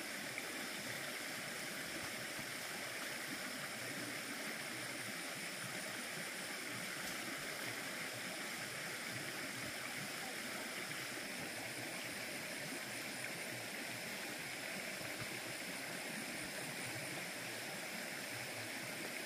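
Stream water flowing, a steady even rush.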